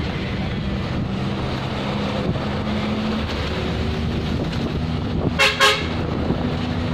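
Engine of a moving road vehicle running steadily with road noise, heard from inside it, and two short toots of a vehicle horn about five and a half seconds in.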